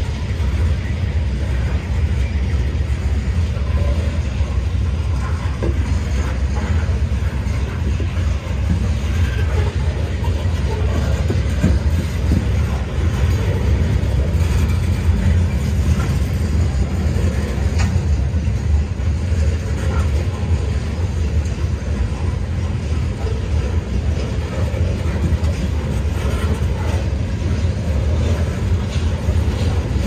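Coal hopper cars of a freight train rolling past: a steady low rumble of steel wheels on rail, with a few faint clicks.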